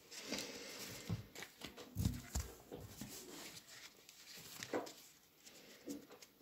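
Faint rustling and scattered light clicks as a boxed tarot deck and its wrapping are handled and unpacked, with a few soft low thumps about two seconds in.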